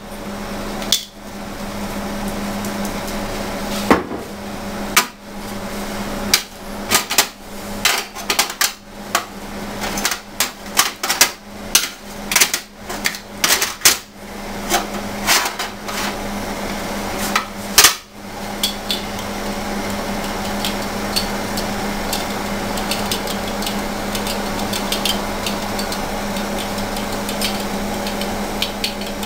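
Kitchen tongs and a spatula clattering against a metal baking tray as ribs are turned over: a run of sharp clinks and knocks that stops about two-thirds of the way through, leaving faint ticks over a steady hum.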